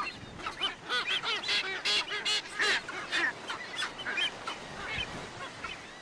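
Sooty terns calling, many short nasal calls overlapping in a busy chorus that thins out after about four seconds.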